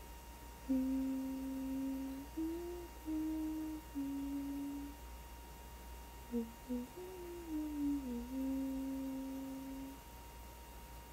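A voice humming a slow melody in long held notes, with a faint steady high tone underneath.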